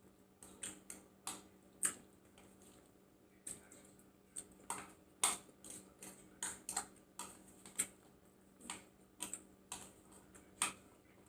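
A person chewing and eating close to the microphone: irregular wet mouth clicks and lip smacks, about two a second.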